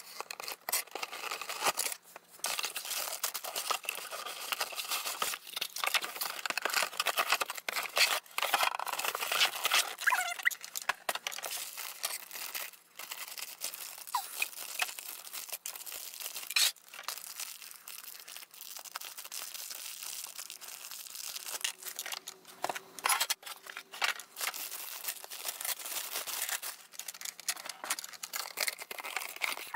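Hands unboxing a toy playset: cardboard packaging and plastic bags crinkling and tearing, with plastic pieces clicking and knocking as they are pulled out and set down.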